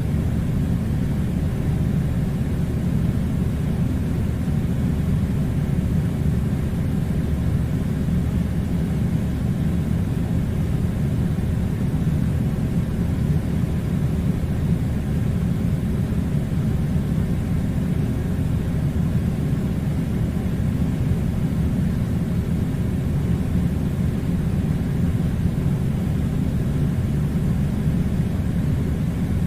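Air conditioner running: a steady low rumble with a faint airy hiss, unchanging throughout.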